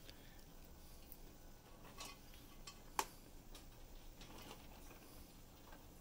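Faint small ticks and rustles from roof rats moving about in a wire cage, with one sharp metallic clink about halfway through.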